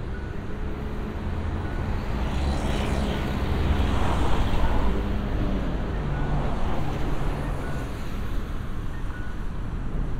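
Cars passing close by on a city street, their tyre and engine noise swelling to a peak about four seconds in and easing off, over a steady low hum of engines.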